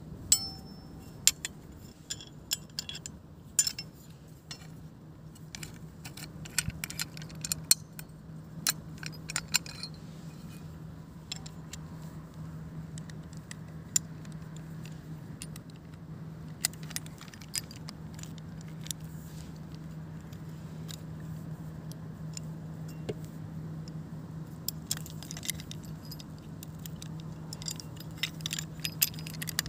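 Metal parts of a folding survival shovel clicking and clinking as the handle sections, collar and fittings are handled and fitted together: scattered sharp clicks and jangles, thickest in the first ten seconds and again near the end, over a steady low hum.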